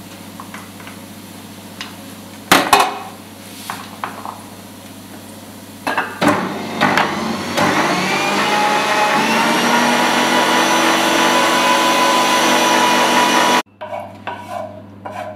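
Electric meat grinder mincing boiled beans: a few knocks as beans are spooned into its plastic hopper, then the motor starts about halfway through, its whine rising in pitch and settling into a loud steady run that cuts off suddenly near the end.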